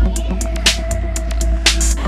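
Electronic background music with a heavy, steady bass and a drum beat, a loud hit about once a second.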